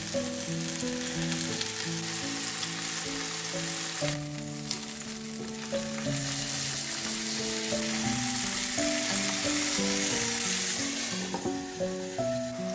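Food sizzling as it fries, a steady crackling hiss that swells in the middle, over background music with sustained notes.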